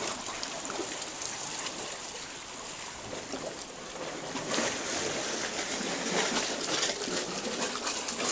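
Seawater washing and trickling among coral rocks and rock pools, an even rushing with a couple of louder surges midway.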